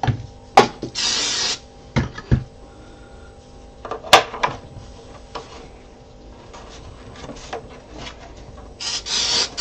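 Two short hisses from an aerosol spray can, about a second in and again near the end, among sharp knocks and taps of hard 3D-printed plastic parts being handled.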